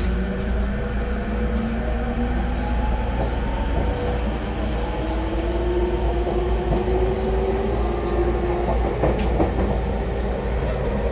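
E231-series electric commuter train running: a steady rumble of wheels on rail under a whine from the traction motors that glides upward in pitch as the train picks up speed. A few rail-joint clicks come about nine seconds in.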